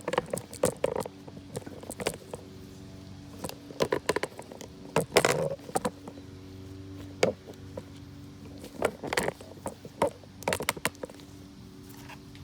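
Irregular clicks, cracks and rattles of a stuck paper oil filter element being forced and broken off its plastic housing cap by hand, over a faint steady hum.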